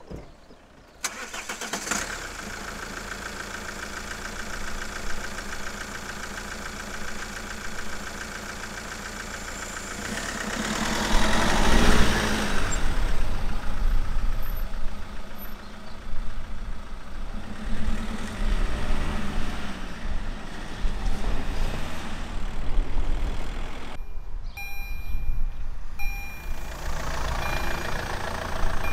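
Vehicles running at a railway level crossing, cutting in abruptly about a second in and swelling loudest midway. Near the end the crossing's warning signal sounds in regular strokes about once a second.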